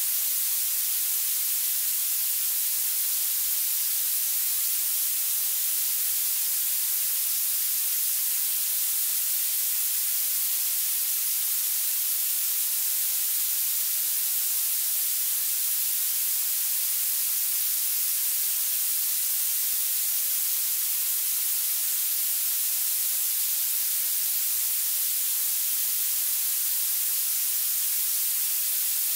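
Steady synthetic violet noise: an even, unbroken hiss weighted heavily to the treble, with almost no low end.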